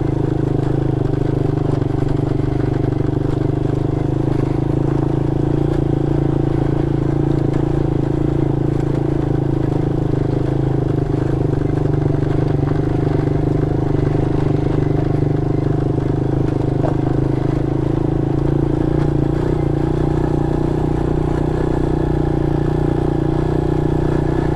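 Small single-cylinder mini motorcycle engine running at a steady, unchanging speed while ridden slowly on a dirt trail.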